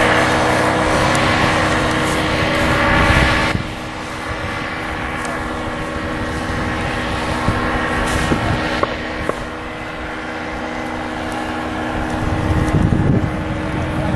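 Paramotor engine and propeller running as it flies low past, loud at first and then dropping to a fainter steady drone about three and a half seconds in; wind buffets the microphone near the end.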